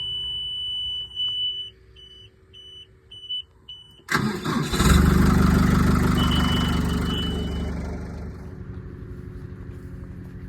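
A high-pitched warning beeper sounds steadily, then in short regular beeps. About four seconds in, the starter cranks and a large farm-machine diesel engine fires, runs loud, then settles to a steadier idle over the next few seconds: a cold start.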